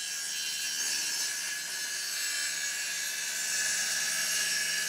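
Handheld circular saw running through a wooden board: a steady whining cut that grows slightly louder toward the end.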